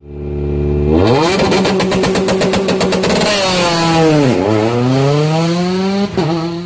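Engine-revving intro sound effect: a racing engine revs up about a second in and holds high revs with a rapid stutter. It drops sharply about four seconds in and climbs again, dips briefly just after six seconds, then cuts off suddenly.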